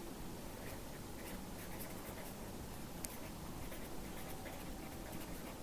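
Faint sound of a pen writing on paper, in short, irregular strokes as a word is written out.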